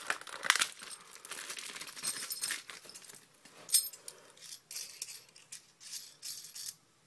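Plastic bag crinkling, then small metal parts clicking and clinking as a 1-inch Romex cable connector is handled, with one sharper click about four seconds in.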